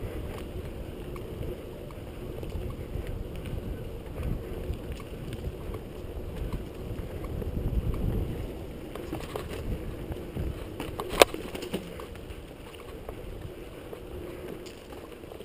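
Mountain bike riding fast down a dirt singletrack: tyre rumble on the trail and wind buffeting the microphone, swelling louder around the middle, with one sharp knock about two-thirds of the way through.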